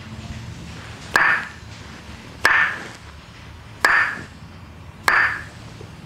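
Wooden mallet striking a wooden massage rod held against the back of the shoulder: four sharp knocks about a second and a quarter apart, each with a brief ringing tone.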